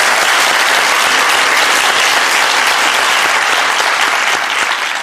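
Loud, dense applause from an audience, many hands clapping at once.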